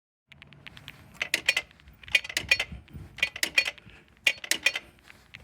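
Metallic clicking in short clusters of three or four sharp clicks, about once a second, with no squeak.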